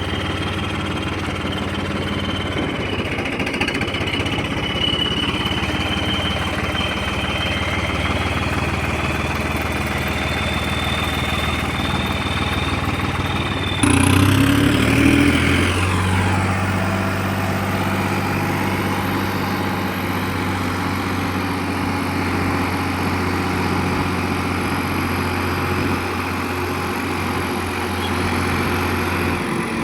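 Farmtrac 60 tractor's diesel engine running steadily. About halfway through it briefly gets louder and its note steps up, then it settles again.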